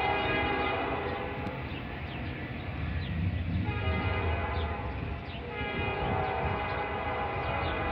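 Metra commuter train's multi-note air horn sounding in long blasts as the train pulls away, over the low rumble of the departing train.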